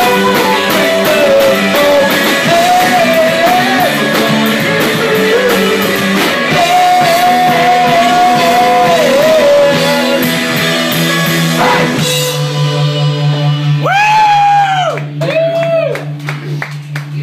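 Live rock band playing with drum kit, guitar and singing. About twelve seconds in the band hits a chord that is held and rings on, with scattered drum hits and two short arching notes over it, like the close of a song.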